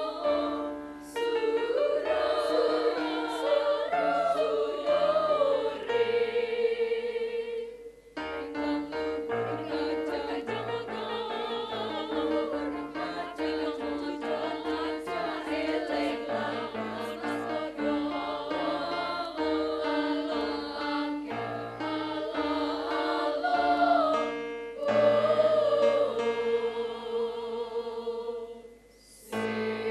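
A women's choir singing in parts, with long held notes at the start and near the end and a stretch of short, quick notes in the middle. The singing breaks off briefly about eight seconds in and again just before the end.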